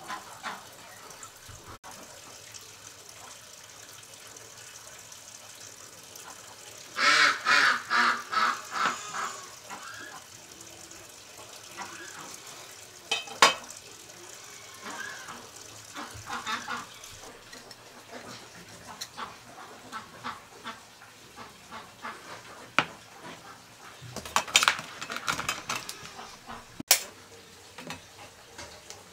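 Ducks quacking in a quick run of calls about seven seconds in and again near the end, with a few sharp clicks and taps from knife work on tomatoes in between.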